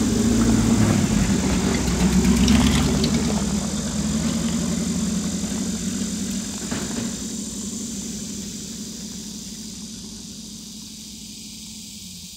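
An old truck's engine running as it drives away, the sound fading steadily until it is faint near the end.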